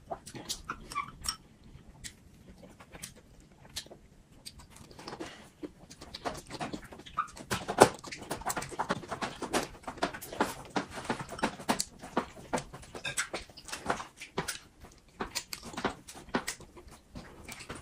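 Close-miked mouth eating sounds: chewing and slurping of noodles and grilled green peppers, with many short wet clicks and crunches that grow denser partway through, the sharpest about eight seconds in.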